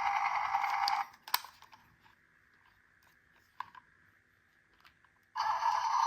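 Electronic siren from a battery-powered miniature toy emergency vehicle, which cuts off about a second in. A sharp plastic click follows, then a near-quiet stretch with a few faint clicks. Near the end another toy's siren starts up abruptly.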